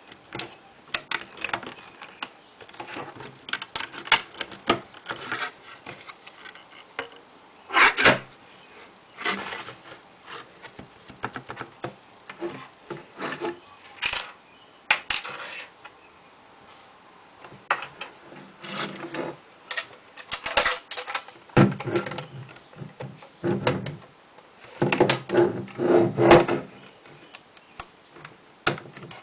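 Plastic Lego bricks clicking and clattering as they are handled and pressed together, in irregular taps with several louder clusters of clatter.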